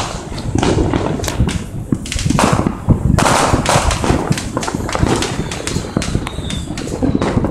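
Fireworks going off in a dense, near-continuous barrage: many overlapping sharp bangs and pops, with no let-up, over a steady low rumble of more distant explosions.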